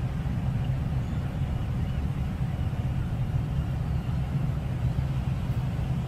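A steady low rumble with no sudden events.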